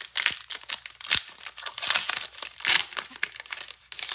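Pokémon booster pack's foil wrapper crinkling and tearing as it is ripped open by hand, a run of sharp, irregular crackles and rips.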